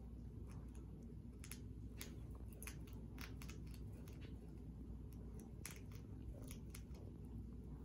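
Hedgehog chewing and crunching food: irregular sharp little crunches, a couple a second.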